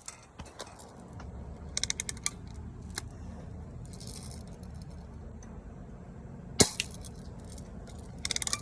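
BB gun fired once, a sharp crack about two-thirds of the way in with a lighter click just after, among quick runs of small metallic clicks from handling the gun.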